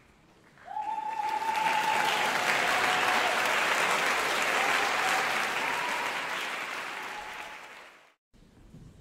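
Audience applauding, starting about a second in, then tapering off and cutting off abruptly near the end.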